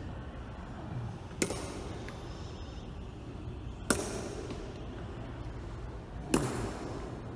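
Honour guard's boots striking a stone floor in a slow ceremonial march step: three sharp, loud stamps about two and a half seconds apart, each echoing through the large hall.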